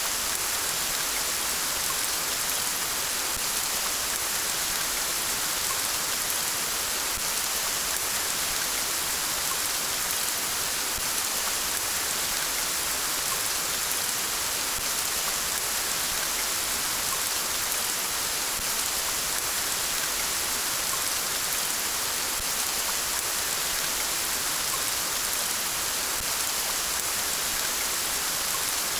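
Steady rain falling, an even hiss with faint patters of drops on surfaces.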